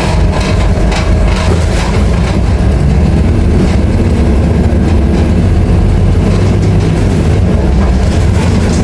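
Scania K310IA articulated bus engine running steadily with a loud low drone. Its pitch lifts slightly about three seconds in and settles again a few seconds later, with some clicks and rattles in the first two seconds.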